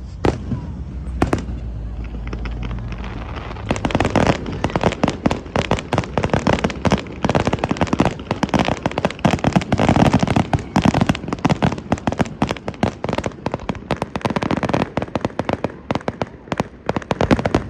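Fireworks going off: two single bangs, then from about four seconds in a dense, rapid run of cracks and bangs that stops abruptly near the end.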